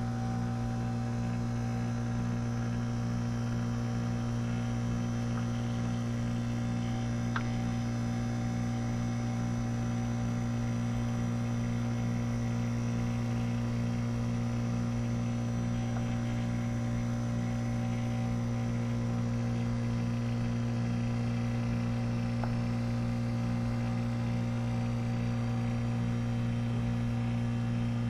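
WaterFurnace geothermal heat pump running with a steady low hum while it is being recharged with refrigerant.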